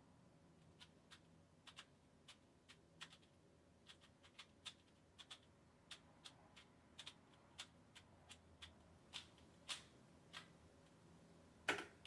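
Faint, irregular clicking of a 3x3 Rubik's cube being turned, a few clicks a second, with one louder clack near the end.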